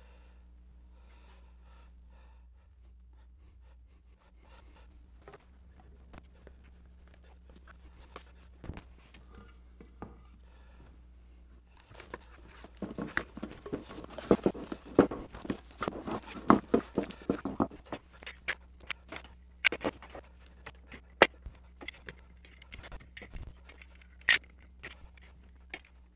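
Plastic stretch wrap pulled off a hand roll and wound tightly around a freshly glued stack of wood blanks, crackling loudly for several seconds, then scattered sharp snaps and clicks. A steady low hum sits underneath.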